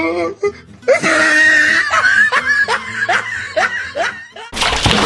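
A man laughing hard in a quick run of repeated ha-ha bursts, then a sudden rush of splashing water near the end.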